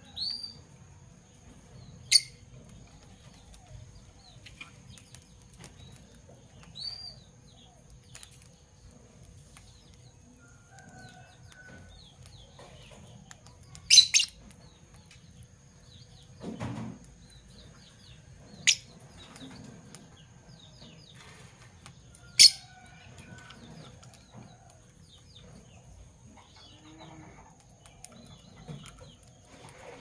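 Fischer's lovebirds in a wire cage giving short, sharp chirps every few seconds, one of them a quick double, with a flutter of wings just past the middle as a bird moves along the perch. A faint steady high-pitched whine runs underneath.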